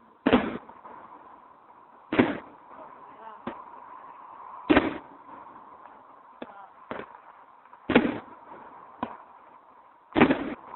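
Fireworks going off: a string of loud sharp bangs, roughly every two to three seconds, with smaller bangs in between, each trailing off in a short echo.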